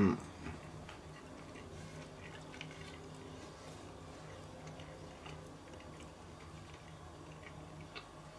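A person chewing a bite of a grilled toasted sandwich: faint, irregular mouth clicks and soft chewing. A short vocal sound comes right at the start.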